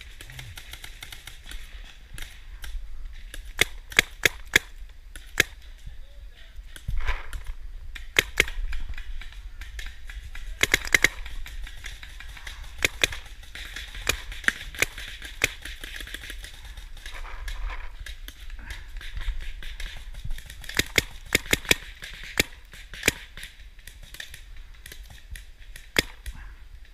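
Paintball markers firing on the field: sharp pops at irregular intervals, sometimes several in quick succession.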